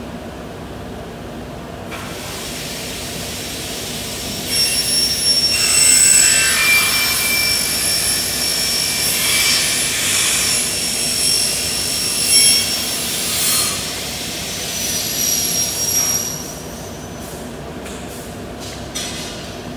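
Hand glass cutter scoring a large sheet of glass: a long, scratchy hiss with high squealing tones that starts about two seconds in and stops about sixteen seconds in, followed by a few faint clicks.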